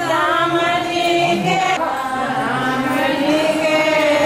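A voice singing long held notes that bend slowly up and down in pitch.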